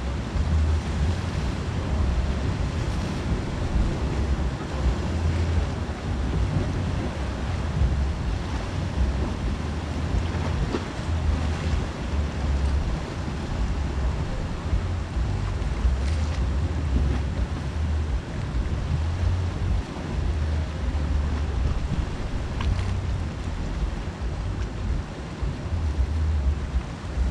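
Wind buffeting the microphone in uneven gusts, over a steady wash of sea surf.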